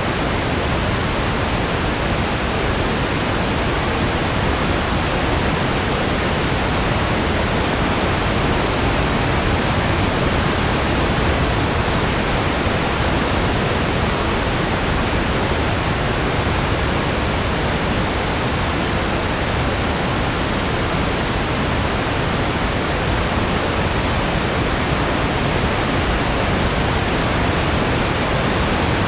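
Steady, unchanging noise made in Audacity as a blizzard-wind sleep sound. It is spread evenly across low and middle pitches, with little at the very top, and has no gusts, swells or breaks.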